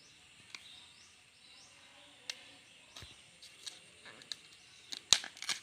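Outer sheaths of a fresh bamboo shoot being peeled off by hand: scattered crackles and clicks, with a quick cluster of louder snaps about five seconds in. Faint, high, repeated chirps run underneath.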